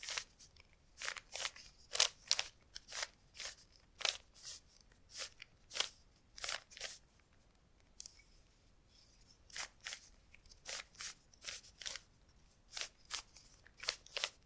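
Rubik's cube being twisted, each turn of a face a short plastic rasp, in a quick run of about two turns a second with a pause of about two seconds midway.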